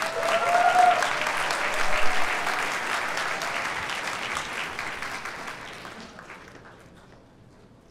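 Audience applauding, then dying away over the last couple of seconds.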